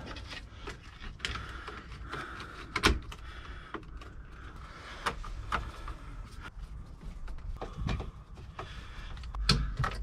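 Hands working parts and a screwdriver on a truck's stripped steering column while fitting a turn signal switch and its wiring: scattered clicks, knocks and rubbing of plastic and metal, with one sharp click about three seconds in.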